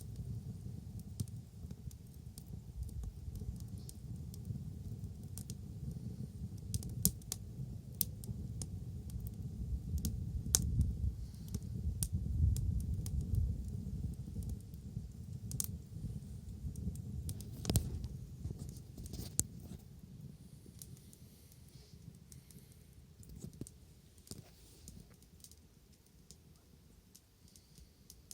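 Bonfire crackling, with irregular sharp pops over a low rumble; it grows quieter and sparser in the last several seconds.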